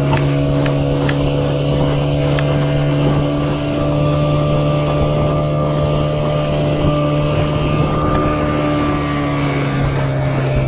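Motorboat engine running steadily at a near-constant pitch while under way, with a few short knocks early on.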